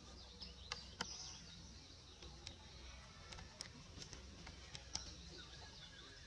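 Faint outdoor background: scattered light clicks and rustles, with faint high bird chirps in the first second or so.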